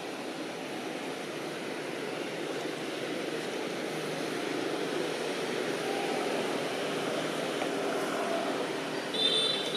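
Steady background noise with no clear pitch, and a short high-pitched squeal about nine seconds in.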